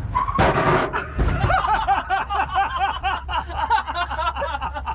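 Several people laughing hard inside a pickup's cab, a quick run of short rising-and-falling ha's, just after a brief loud burst of noise in the first second.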